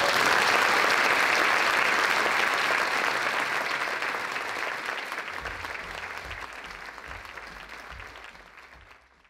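Audience applauding, loud at first and slowly dying away until it fades out near the end.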